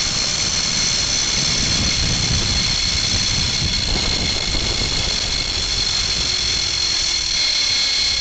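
Zip-line trolley pulleys running along the steel cable with a steady high-pitched whine, over wind rumble on the microphone. In the last few seconds a lower tone glides down in pitch as the ride slows toward the landing platform.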